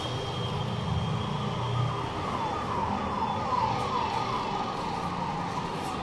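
A siren sounding in quick, repeated falling sweeps from about two seconds in, over a steady rumble of street traffic.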